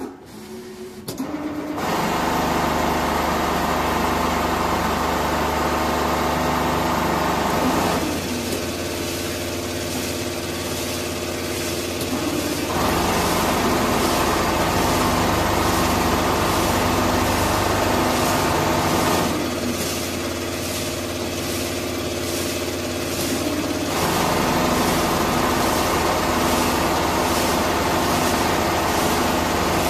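Richpeace four-head CNC sewing machine running, its needles stitching at a fast even rhythm over the hum of the drive. It comes in about two seconds in, and its sound shifts back and forth between two running tones every five or six seconds.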